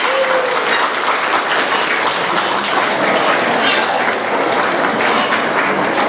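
Audience applauding: many hands clapping in a dense, steady patter that eases off at the end.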